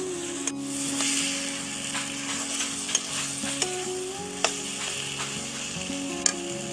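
Taro leaves and chickpeas sizzling in a metal kadai while a metal spatula stirs and scrapes them, with several sharp clicks of the spatula against the pan, the loudest about three, four and a half and six seconds in.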